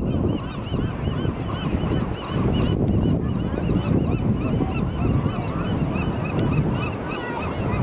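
A crowd of gulls calling together from the sea stacks, many short rising-and-falling cries overlapping without a break, over a steady low rush of wind and surf.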